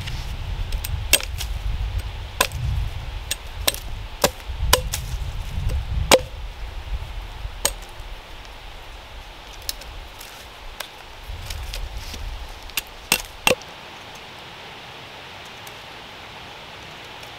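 Small hatchet chopping and trimming a green wooden stick against a log: about a dozen sharp, irregular knocks, which stop about thirteen and a half seconds in.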